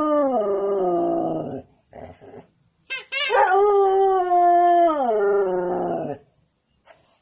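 Dalmatian howling: a long howl that slides down in pitch and dies away about a second and a half in, then, after a short pause, a second long howl held steady before falling away.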